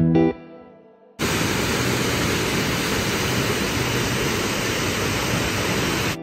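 Steady rushing of a mountain waterfall pouring down a rocky stream bed. It starts suddenly about a second in and cuts off just before the end, after the last notes of a plucked guitar tune fade out.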